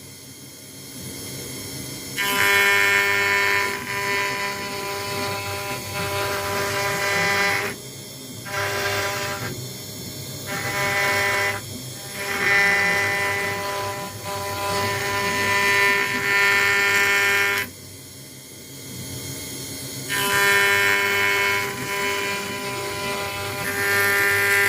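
CNC router engraving an acrylic sheet with a 1 mm ball end mill: a steady machine hum with a loud pitched whine that comes and goes in stretches of one to five seconds as the machine moves and cuts during roughing.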